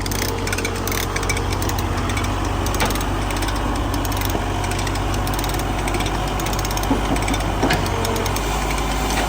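A heavy engine running steadily under load, with a few short knocks and clanks. Its low note drops slightly near the end.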